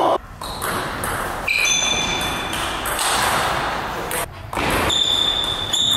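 Table tennis play in a hall: light knocks of the ball, and several high-pitched squeaks, each up to about a second long.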